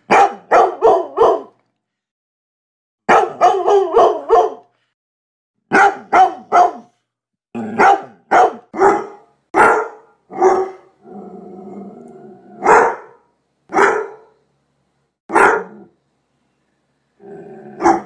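Dog barking, first in quick runs of four or five barks, then in single barks about a second apart. A low steady growl comes about eleven seconds in and again just before the final bark.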